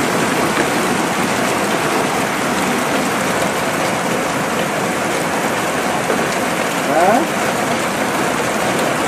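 Heavy hailstorm of mostly dry hail: a steady, dense patter of hailstones pelting the ground. A brief rising sound comes about seven seconds in.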